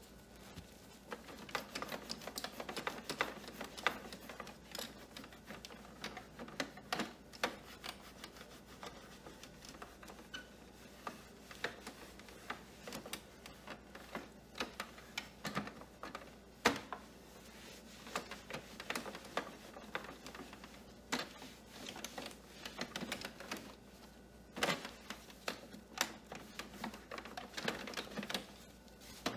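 Gloved hands wiping a plastic printer casing with a cloth: soft rubbing and rustling broken by many irregular small clicks and taps on the plastic, with a few louder knocks.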